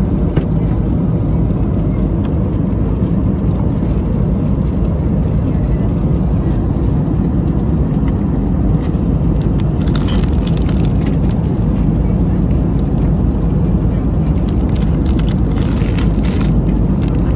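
Steady low rumble of an Airbus A321neo's cabin in flight, the engine and airflow noise heard inside an airliner. Brief crackly hiss cuts in twice, about ten seconds in and again near the end.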